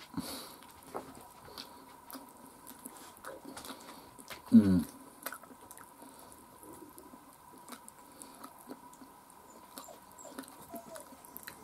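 Scattered soft clicks and small crackles of fingers picking apart a piece of fried chicken, with faint chewing. A short voiced murmur about four and a half seconds in.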